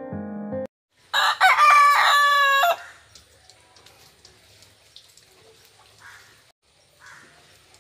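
A country rooster crows once, a loud cock-a-doodle-doo starting about a second in and lasting about a second and a half. A brief bit of background music cuts off just before it.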